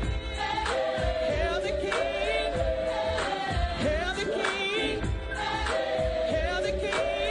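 Gospel choir singing in harmony, holding long chords over a steady low beat.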